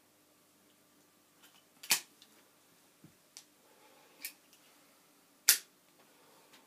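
Sharp clicks and taps from a small object being handled close to the microphone: two loud clicks, about two seconds in and about five and a half seconds in, with a few fainter ones between.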